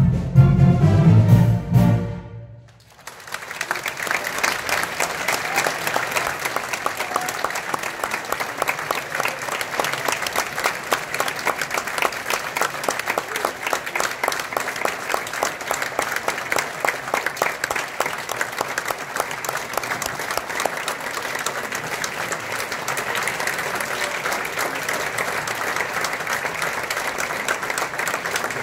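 A brass band's closing chord held for about two seconds and then cut off sharply, followed by an audience's sustained applause.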